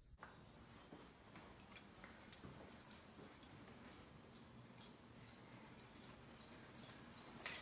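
Paper banknotes flicked one at a time off a wad in the hand, each giving a crisp snap, about two a second.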